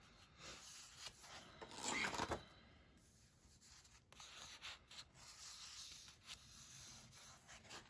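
A sheet of paper being turned over and slid on a cutting mat: a rustling swish about two seconds in, then lighter rustling and rubbing of paper.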